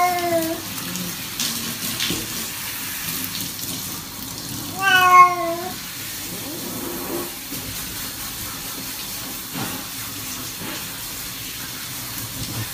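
Cat meowing while being bathed: one meow right at the start and a louder, longer, pitch-bending meow about five seconds in. Under it runs the steady hiss of water from a hand shower.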